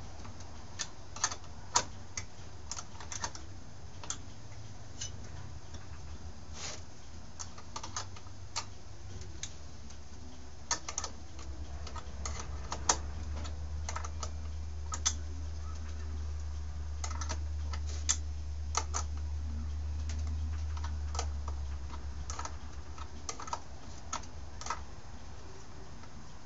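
Hand tools and small metal parts clicking and tapping at an irregular pace as a Stihl S10 chainsaw is put back together, over a low rumble that grows louder in the middle and fades near the end.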